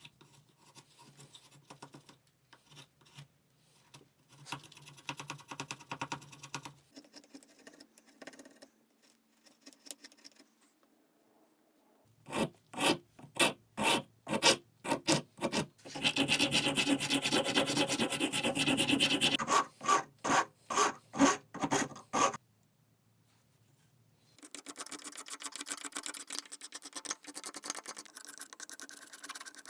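Hand filing and rubbing strokes on the small marking knife being made, in several separate bouts: light scraping at first, then a run of distinct strokes about two a second, then dense, fast continuous rubbing.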